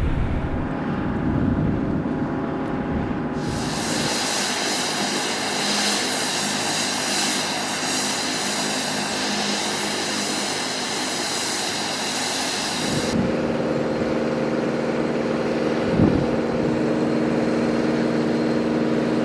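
Aircraft engine and flight-line machinery noise around an MQ-9 Reaper drone, in three steady stretches: a hum, then a loud rushing hiss with a high whine starting about three seconds in, which cuts off about two-thirds of the way through into a lower steady hum with a single thump near the end.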